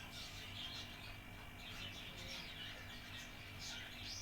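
Small birds chirping over and over, with a few quick rising calls near the end, over a steady low hum.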